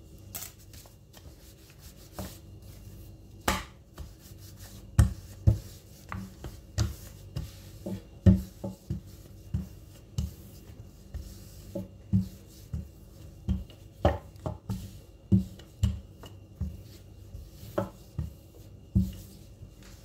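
Dough being rolled out with a rolling pin on a granite countertop: a long run of dull knocks, roughly one every half to two-thirds of a second, as the pin is pushed back and forth.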